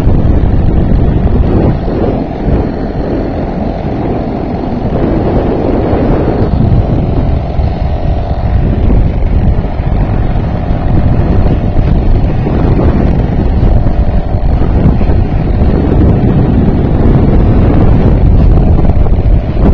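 A 3.5 hp Sea King outboard motor running steadily, pushing an inflatable raft under way, with heavy wind buffeting on the microphone.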